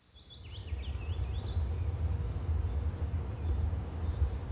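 Outdoor ambience: birds chirping, several quick chirps in the first second and a half and a rapid high trill near the end, over a low steady rumble.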